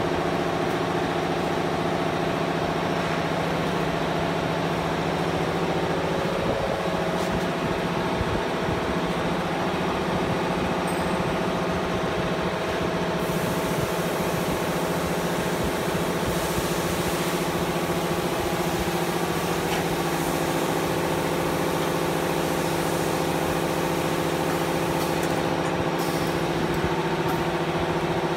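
Steady mechanical hum of PVC window profile welding machinery running, made of several constant tones with no breaks or knocks.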